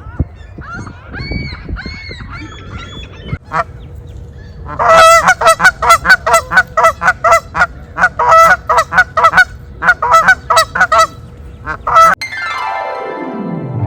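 Canada geese honking: scattered calls at first, then about five seconds in a loud, rapid run of honks, several a second, for some seven seconds. Near the end the honking stops and a falling sweep of tones comes in.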